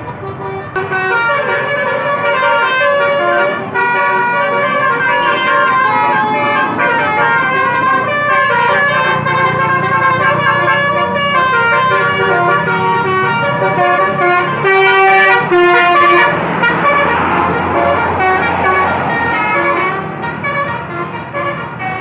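Bus 'telolet' musical air horn of the Basuri type playing a stepping multi-note tune over the bus engine's hum. About two thirds of the way through the tune stops and a rushing noise takes over.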